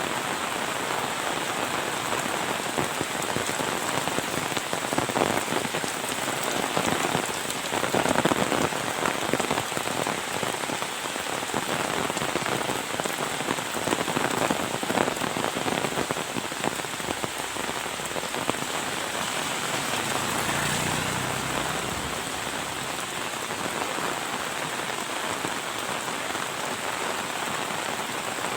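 Heavy rain falling steadily, with louder spatters now and then and a brief low rumble about two-thirds of the way through.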